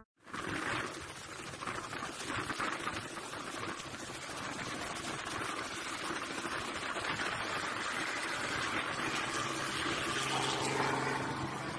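Small helicopter lifting off and climbing, heard as a steady rushing noise of rotor and engine with the rotor downwash blasting the microphone. A faint steady engine hum comes through near the end.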